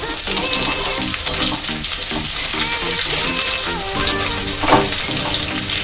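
Dry fish pieces and sliced onions sizzling steadily in hot mustard oil in a kadai while a spatula stirs and turns them, with a brief knock of the spatula on the pan about three quarters of the way through.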